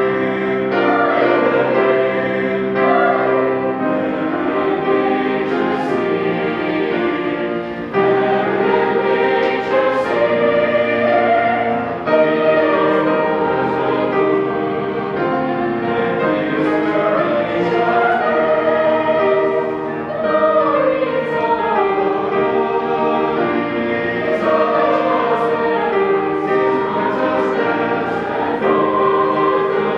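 Large mixed high-school choir singing a slow piece in held, overlapping parts, with the voices' s-consonants landing together now and then.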